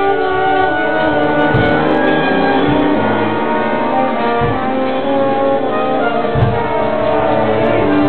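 Live brass band music: horns and sousaphone playing long held notes over snare drums, with four heavy bass-drum beats.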